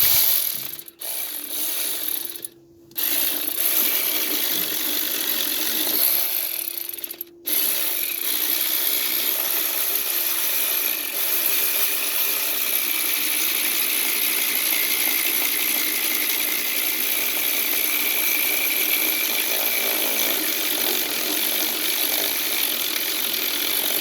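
Electric ratchet running and backing out a tight, stuck alternator mounting bolt, with a few short stops in the first seven seconds and then a long, steady run.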